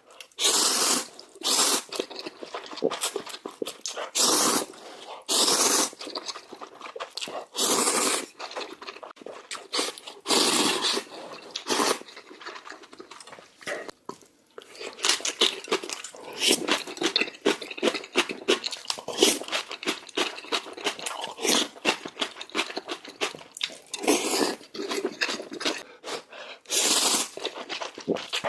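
Spicy instant noodles being slurped in repeated loud gulps, several in the first dozen seconds and again near the end, with wet chewing and smacking in between.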